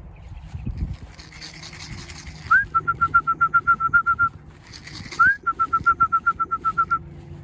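A bird singing twice: each phrase a rising note followed by a fast run of short, even whistled notes, about nine a second, lasting under two seconds. A brief rustle comes just before each phrase.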